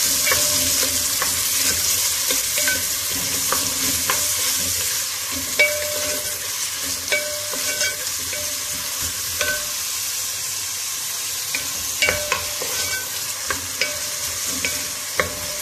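Sliced onions sizzling in hot oil as they are browned, stirred with a wooden spoon that scrapes and knocks against the metal pot now and then.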